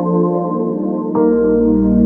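Ambient background music of slow, sustained chords, with a new chord and a deep bass note coming in about a second in.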